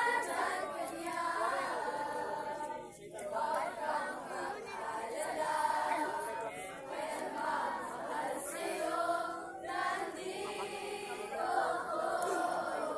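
A group of scouts singing together in unison, unaccompanied, in sung phrases with short breaks between them.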